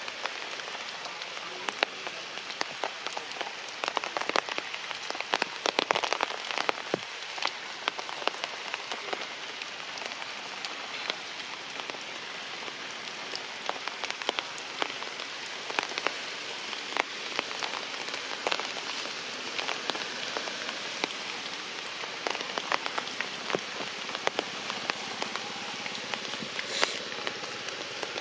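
Heavy rain falling steadily, with many close drops striking sharply; the hits come thickest and loudest about four to seven seconds in.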